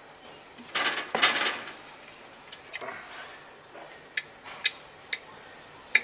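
6 mm Allen key tightening a bolt: a burst of metal scraping and rattling about a second in, then a run of sharp metal clinks roughly half a second apart.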